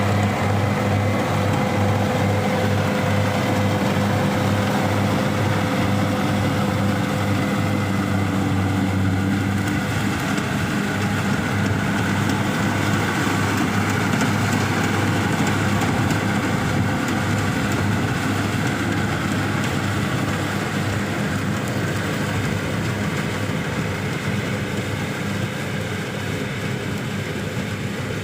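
Kubota DC-60 rice combine harvester's diesel engine and machinery running steadily. Its even engine hum turns into a rougher, busier mechanical noise about ten seconds in.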